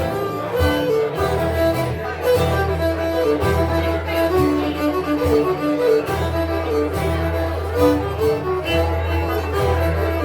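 Live instrumental folk music: a melody of held notes over a low bass line that changes every second or so, with no singing.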